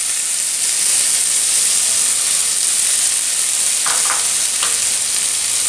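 Boiled sprouted mung beans sizzling in hot oil in a steel kadai: a steady frying hiss.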